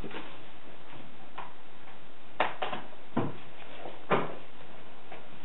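Large cardboard shipping box being opened by hand, its top flaps pulled up and folded back. There are light scrapes, then a handful of sharp cardboard crackles and knocks in the second half.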